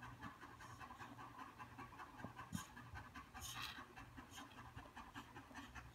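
A Doberman panting steadily, faint.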